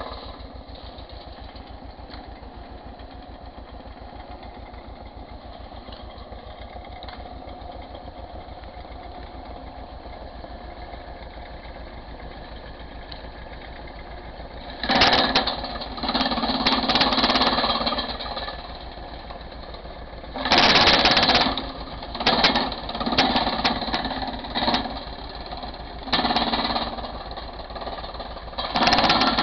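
A tractor-powered branch chipper with a conveyor feeder running steadily at first, over a fast, even engine beat. From about halfway through come loud, harsh bursts of a second or more, about six of them, as branches are fed in and chipped.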